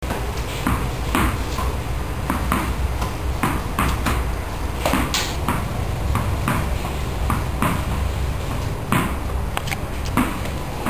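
Tennis ball being hit with a racket and bouncing off the wall and the hard tiled floor: a quick, uneven series of sharp pings and knocks, about two a second.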